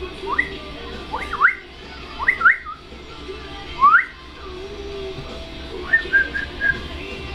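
A person whistling short, quick rising whistles, several in a row about a second apart, then a few short level whistled notes about six seconds in.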